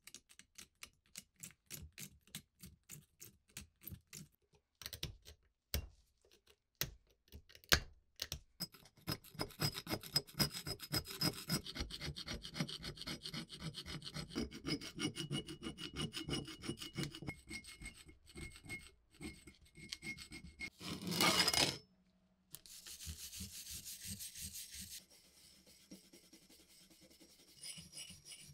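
Steel pick and scraper scratching rust out of the deep pits on an old Swedish axe head, starting as quick separate scratches and building into steady dense scraping. A short louder scrape comes about two-thirds of the way through.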